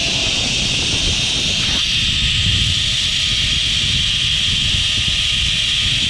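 Steady rushing noise of a zip line ride: wind buffeting the camera microphone as the trolley pulleys run along the steel cable, with a faint steady whine underneath.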